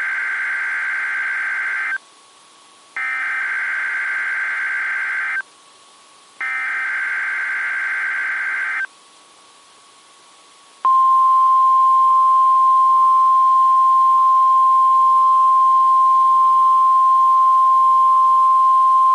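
NOAA Weather Radio weekly test signal. Three bursts of SAME (Specific Area Message Encoding) digital header data, each about two seconds long with short gaps between. About 11 seconds in comes the steady 1050 Hz warning alarm tone, the signal that switches on weather alert receivers.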